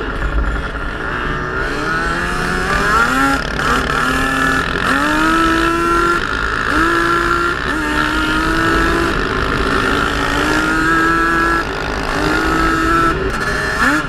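Sport ATV engine revving through the throttle: it climbs steeply in pitch about two to three seconds in, then holds at a high steady pitch in several stretches, each broken by a short drop, and climbs again near the end. A steady low wind rumble on the helmet-mounted microphone runs beneath it.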